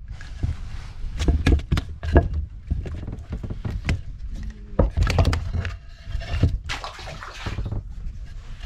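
Knocks and clatter of a wooden deck hatch board being lifted and handled on a wooden fishing boat's deck planks, many sharp knocks over a steady low rumble.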